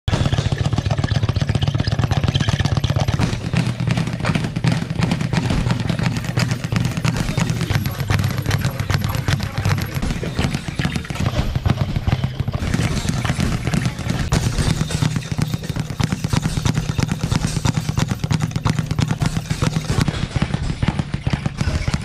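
Speed bag being punched in a fast, continuous rattle of quick impacts as the bag rebounds off its platform, over a steady low hum.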